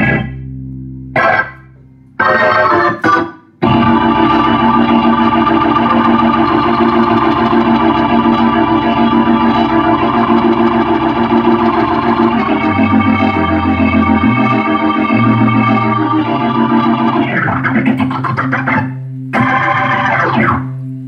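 Hammond A100 organ played through a Leslie 122 rotating speaker cabinet. A few short chord stabs are followed by a long held chord over changing bass notes, then more short chords that die away near the end.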